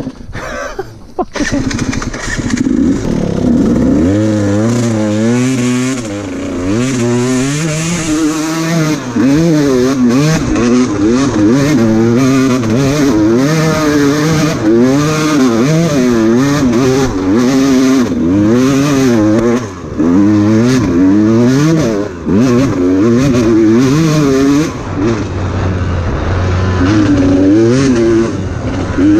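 Enduro dirt bike engine on the trail, revving up and down over and over with constant throttle changes, with a few brief drops in the note and a steadier, lower run near the end.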